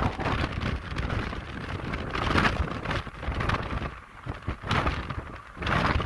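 Wind buffeting the microphone in gusts over a steady low rumble, with surges of rushing noise a few times.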